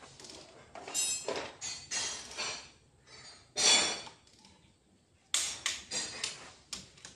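Irregular metallic clinks and knocks of hand tools and engine parts being handled during diesel engine assembly, the loudest about three and a half seconds in.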